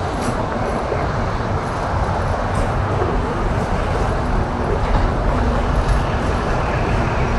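Steady traffic noise from the George Washington Bridge roadway, even and unbroken with no single event standing out.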